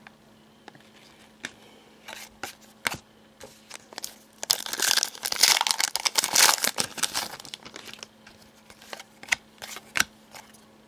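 Crinkling plastic packaging and trading cards handled by hand: scattered light clicks and taps, with a dense burst of crinkling and rustling lasting about three seconds in the middle.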